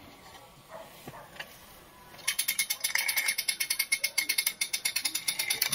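Hand-cranked winch ratcheting as the crank is turned to lower a chain-hung pizza tray: a fast, even run of sharp clicks from the pawl that starts about two seconds in.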